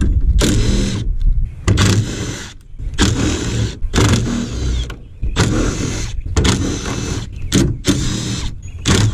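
24-volt cordless driver running in a series of short runs of about a second each, spinning out the bolts that hold a Ford F150's grille to the radiator support.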